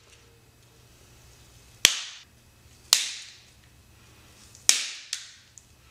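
Side cutters clipping through brittle, glass-like cured 3D-printer resin supports: three sharp cracks as the material shatters, the last followed by a smaller one.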